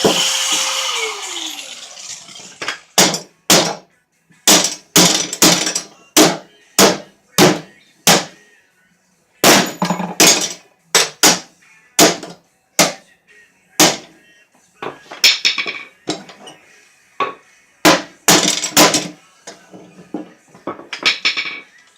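An angle grinder spinning down after being switched off, its pitch falling, followed by a run of sharp hammer blows, irregularly spaced and sometimes in quick clusters.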